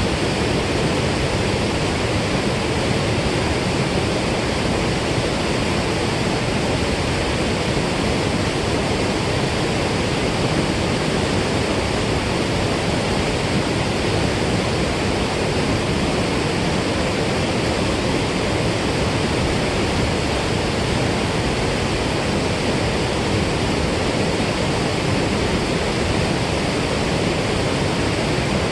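Steady rush of water pouring out of a dam spillway, a constant even roar of white water.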